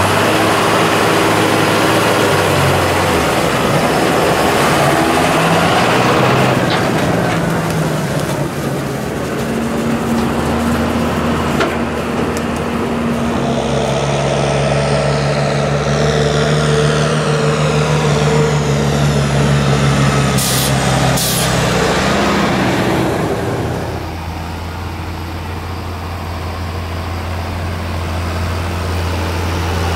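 John Deere tractor diesel engines running while they pull loaded sugar beet trailers, the engine note changing from shot to shot. There are two short hisses about twenty seconds in, and a steadier low engine drone from about twenty-four seconds on.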